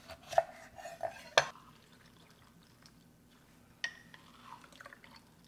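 Knife cutting a lemon in half on a cutting board: a few sharp knocks in the first second and a half. After a quiet stretch, a click near four seconds in and faint drips as a hand-held lemon squeezer presses the juice into a bowl.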